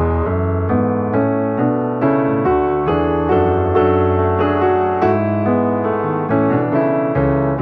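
Background music: a piano melody of evenly paced notes, about three a second, over held bass notes.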